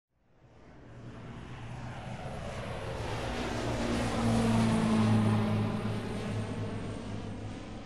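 An airplane passing overhead: its engine sound swells in from nothing, is loudest about five seconds in, then fades away.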